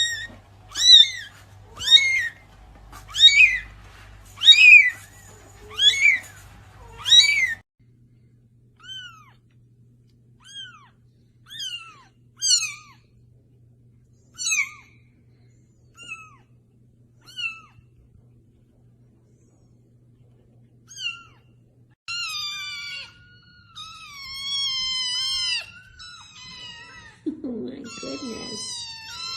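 Cats meowing: a run of loud, short meows that fall in pitch, about one a second, then fainter, more widely spaced meows, and near the end longer wavering meows close together.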